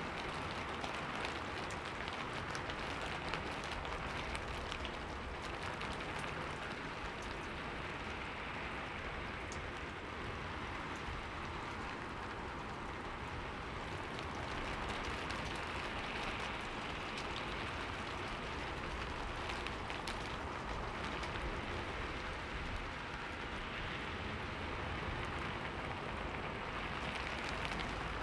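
Steady rain falling on a window: an even hiss with many small, scattered drop taps.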